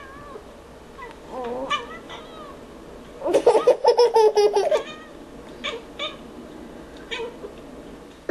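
A domestic cat meowing in several short, gliding calls, played back through a device's speaker from a cat video. A child laughs loudly partway through.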